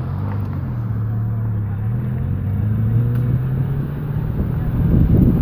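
Car engine running steady, rising slightly in pitch and getting louder, with wind buffeting the microphone building near the end.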